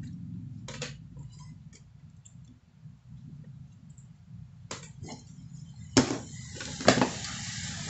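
Light clicks and knocks from hands working the deflection yoke on a CRT picture tube's neck, with two sharp, louder clicks near the end followed by a brief rustling hiss. A steady low hum runs underneath.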